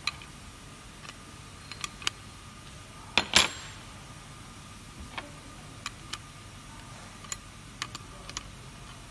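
Scattered small metallic clicks and taps of a hand tool against a pot filler faucet's brass cartridge and metal body as the cartridge is worked, with a louder clatter about three and a half seconds in.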